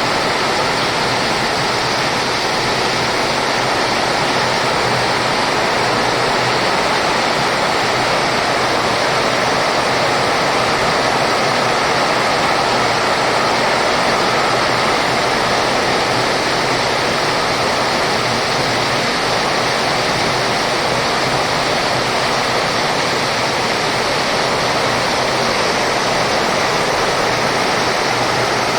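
Heavy rain pouring steadily in strong wind, a dense unbroken hiss.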